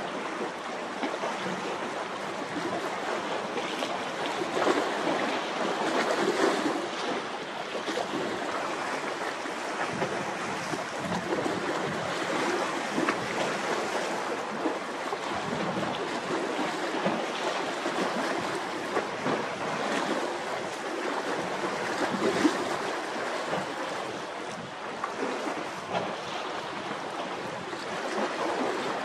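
Wind-driven choppy sea: waves washing and wind gusting over the microphone, a steady rushing that swells and eases.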